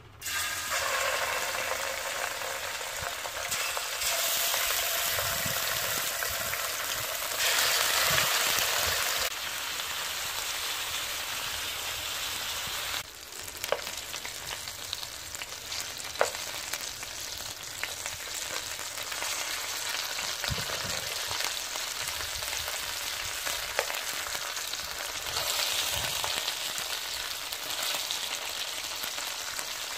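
Floured chicken pieces frying in a hot aluminium pan, a dense sizzle that starts suddenly as the first pieces go in. A metal spoon turning the pieces gives a few sharp clicks against the pan.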